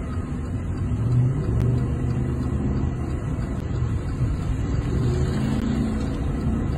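Car driving at speed, heard from inside the cabin: a steady low rumble of engine and road noise.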